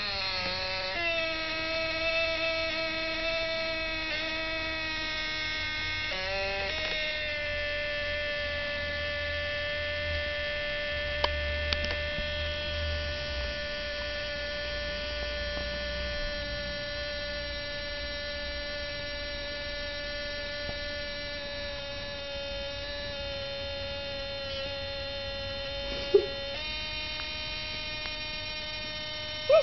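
Small electric motor in a faulty Polaroid SX-70 instant camera running on without stopping, a steady whine that shifts in pitch about a second in and again around six seconds. There are sharp clicks near the end. This is the sign of the camera's bad shutter.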